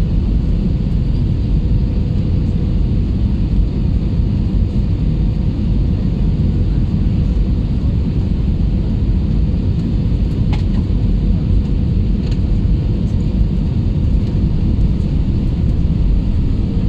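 Steady low rumble of an airliner's engines and airflow heard inside the passenger cabin during landing, with a faint steady hum and a couple of faint clicks about two-thirds of the way through.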